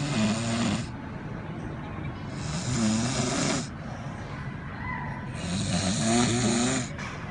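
A man snoring heavily in his sleep: three long snores about three seconds apart, each a mix of a low pitched tone and a noisy rasp.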